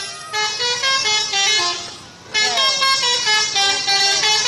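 Indonesian 'telolet' multi-tone bus horn playing a quick stepping melody. It dips briefly about two seconds in, then starts a second phrase.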